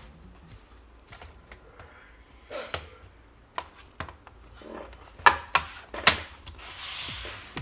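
Plastic parts of an HP 15 laptop being handled and fitted back together: scattered light clicks and taps, with a few sharper snaps about five to six seconds in and a short scraping rustle near the end.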